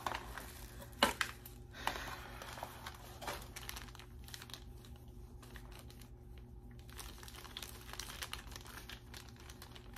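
Plastic packaging crinkling and rustling as an item is unwrapped by hand, with sharp crackles about a second in and again around two and three seconds, then softer handling.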